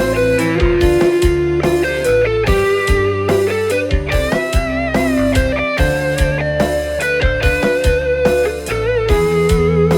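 Live band playing a pop-dangdut instrumental intro: an electric guitar carries a bending melody over low sustained chords and a steady beat of about two drum strokes a second.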